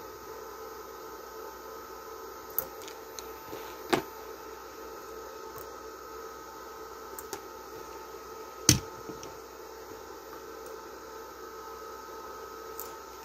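Steady hum from a powered-on Korund 240 welding inverter, with a few sharp clicks and taps as multimeter test leads are handled and pressed onto its output terminals, the loudest about nine seconds in.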